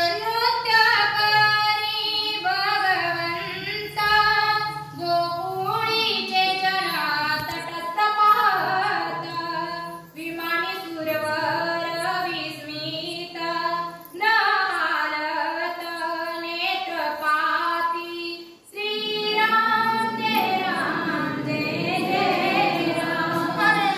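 A woman singing a devotional verse in long melodic phrases, with brief pauses between phrases.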